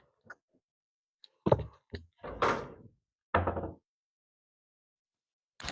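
Storage cabinet or drawer being shut: a couple of knocks, a short sliding rub, then a heavier closing thud.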